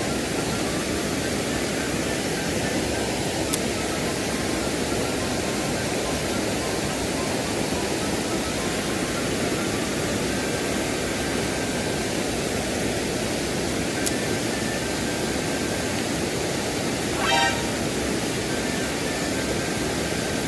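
Mountain stream rushing over rocks: a steady, even rush of water, with a short burst of another sound near the end.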